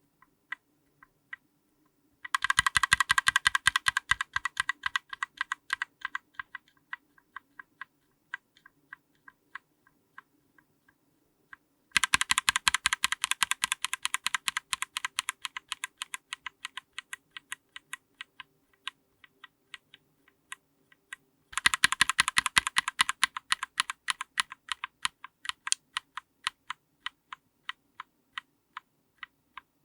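Linear mechanical keyboard switches under a GMK keycap, close-miked, pressed in rapid strokes. There are three bursts of fast presses, each thinning out into slower, scattered keystrokes.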